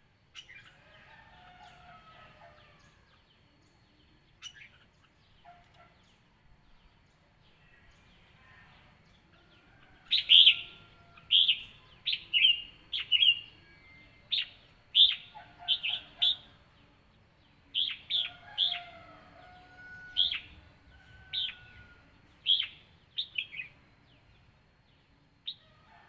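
Red-whiskered bulbuls calling. A few faint chirps at first, then from about ten seconds in a run of loud, short, sharp notes, roughly one a second and sometimes two or three in quick succession, for about thirteen seconds.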